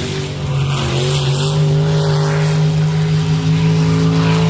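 A motor running at a steady, unchanging pitch over a rushing hiss.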